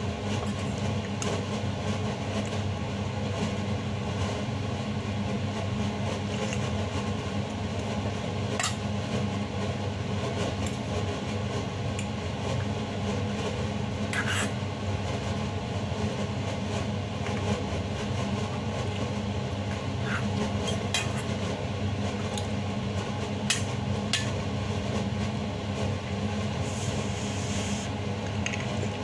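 A steady low mechanical hum throughout. Over it come a few short metallic clinks of a fork and spoon against a stainless steel pot while eating, the clearest about nine and fourteen seconds in and a cluster between twenty and twenty-four seconds.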